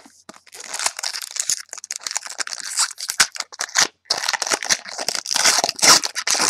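A trading-card pack wrapper being handled and opened: a dense, crinkling crackle full of sharp clicks, loudest in the second half as the pack is torn open.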